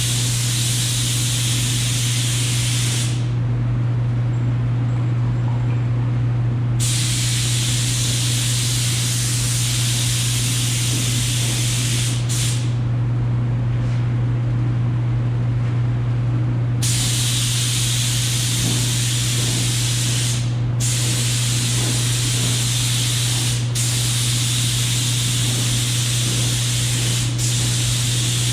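Gravity-feed paint spray gun spraying build primer, a steady hiss of air and atomised primer. It stops for a few seconds twice and cuts out briefly a few more times as the trigger is released between passes. A steady low hum runs underneath throughout.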